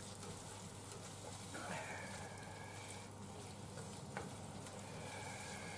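Chicken, napa cabbage and onion sizzling faintly in a frying pan, stirred with chopsticks, with a light tick about four seconds in.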